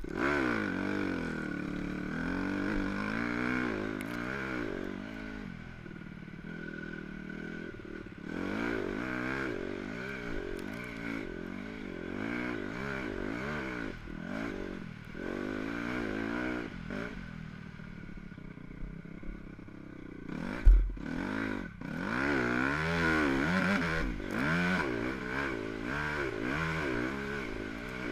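Dirt bike engine being ridden hard, its pitch rising and falling over and over with throttle and gear changes. A single loud thump about two-thirds of the way through.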